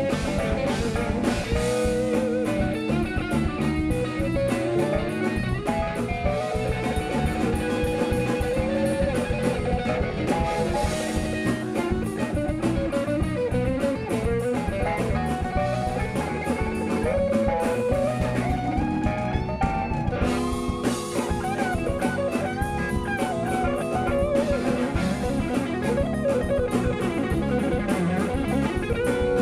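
Live instrumental jazz-funk band playing: electric guitar lines that bend in pitch over drum kit and bass guitar, with held chords coming in about twenty seconds in.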